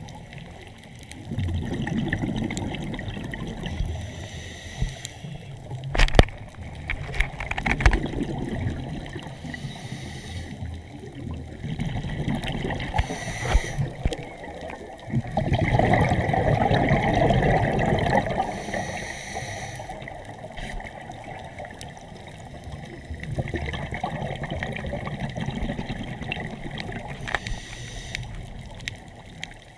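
Water sloshing and trickling in uneven swells, with a few sharp knocks about six and eight seconds in.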